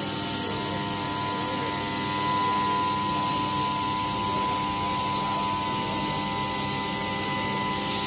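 Ratcheting clicks of a hand-turned sink clamp being tightened on its threaded rod, drawing the sink bowl up against the underside of the stone countertop. A steady hum of several even tones runs underneath.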